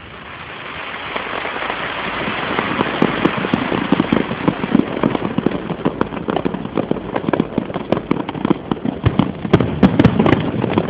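Fireworks crackling: a hiss builds over the first couple of seconds, then gives way to a dense, rapid stream of pops and crackles.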